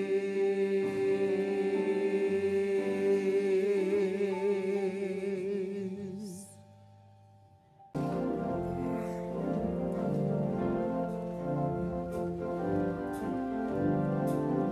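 A small vocal ensemble sings a held chord with vibrato that fades out about six seconds in. After a brief hush, organ music starts abruptly about eight seconds in and plays on in steady chords.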